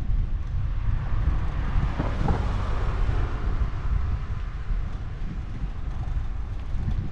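A small car overtakes: its engine and tyre noise swells and fades about two to three seconds in. Wind rumbles steadily on the microphone.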